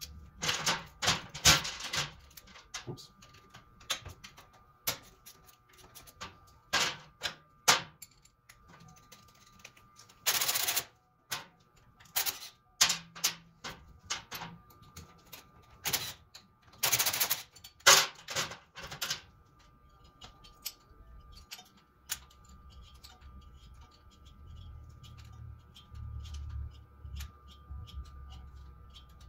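Hand tools working on motorcycle parts: scattered metallic clicks and clanks, with a few louder rasping bursts of about half a second around the middle. The clicking thins out in the later part.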